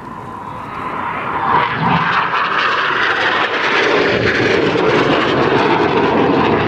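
BAE Hawk jet trainers of the Red Arrows flying past in formation, their jet noise swelling about a second in and staying loud as they come towards the listener.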